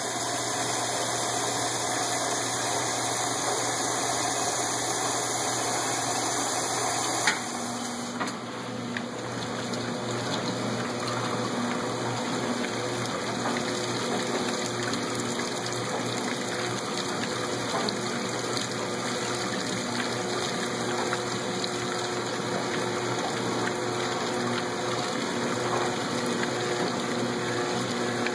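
A 1986 Lady Kenmore top-loading washer filling at start-up: a steady rush of water pouring into the tub. About seven seconds in there is a sharp click, the rush changes character, and a faint regular pulsing joins it.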